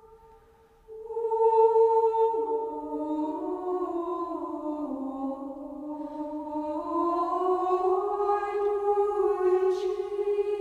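Slow choral music: several voices holding long, sustained notes in harmony that shift slowly in pitch, coming in about a second in after a brief near-silent pause.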